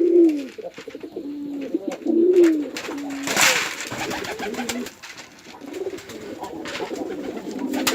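Domestic pigeons cooing over and over, their low coos rising and falling and overlapping. A short rush of noise comes about three and a half seconds in.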